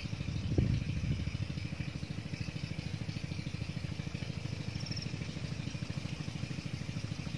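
A small engine running steadily at idle, a rapid even low pulsing that does not change. A brief high chirp comes about five seconds in.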